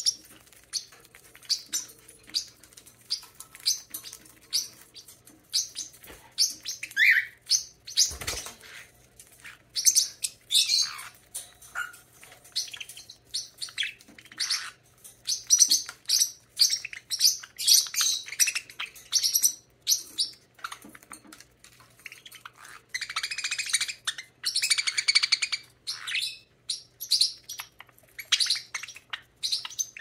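Pet budgerigars chirping and chattering in short, high calls, with a dense stretch of rapid chatter about three-quarters of the way through. A single thump sounds about eight seconds in.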